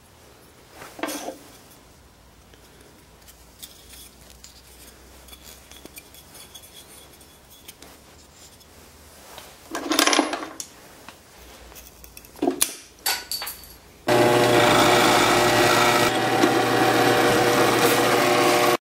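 A few brief knocks and rubs of wooden pieces being handled, then a power tool running steadily for about five seconds and cutting off abruptly.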